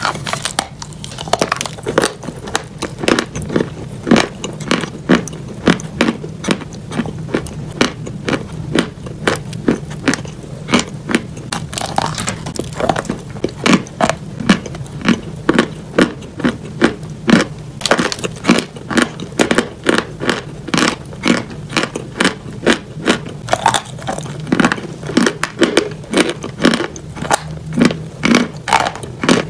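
Pieces of chalk being chewed close to the microphone: a steady run of dry, crisp crunches, a few a second.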